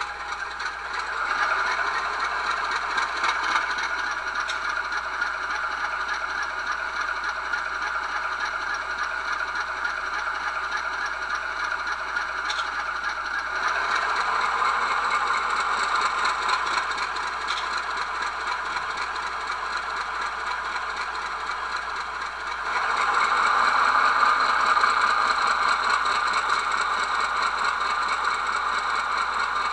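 QSI Titan sound decoder in an HO-scale model locomotive playing an ALCO 244 diesel engine sound through its small speaker, a steady rattling engine run that steps up in loudness about a second in, again about halfway through, and again about three quarters of the way through.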